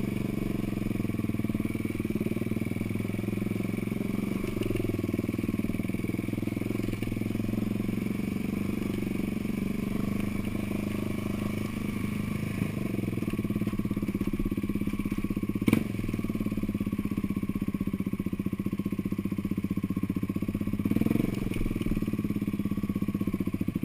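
Off-road vehicle engine running steadily, with a single sharp knock a little past the middle.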